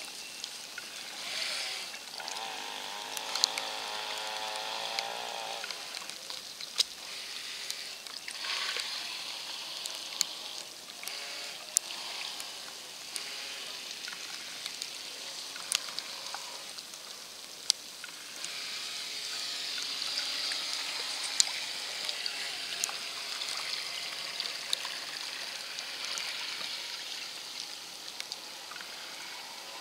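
Water churning and trickling as a radio-controlled carp bait boat runs out across a lake. A steady motor whine sounds from about two to five seconds in, and sharp ticks are scattered throughout.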